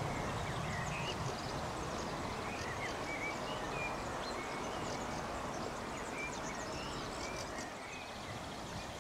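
Small birds chirping again and again over the low rumble of an electric train running away into the distance, the rumble fading slowly.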